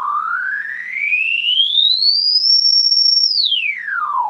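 Sine tone from a Behringer 921 oscillator passed through a 1630d frequency shifter, a digital homage to the Moog Bode 1630, with its shift knob being turned. The tone glides smoothly up to a high pitch over about two and a half seconds, holds there briefly, then sweeps back down quickly near the end.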